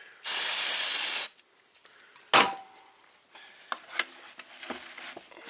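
Aerosol cleaner sprayed onto a dirty throttle body in one loud hiss about a second long. It is followed about two seconds in by a sharp knock with a short ring, then a few light clicks.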